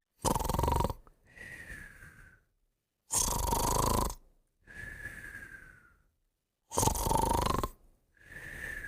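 Snoring in a steady rhythm, three breaths about three seconds apart. Each breath is a loud, rasping snore followed by a quieter breath with a thin whistle that falls slightly in pitch.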